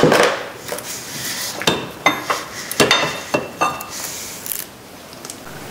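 Metal tools and bolts clinking: about ten sharp clicks and knocks, some with a short metallic ring, from a socket, ratchet and small 8 mm bolts being handled while the water pump pulley is unbolted.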